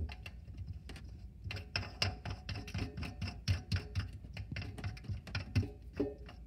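Plastic wing nut being spun by hand up a faucet's threaded shank under a sink: rapid, irregular clicking and ticking, dense from about a second and a half in.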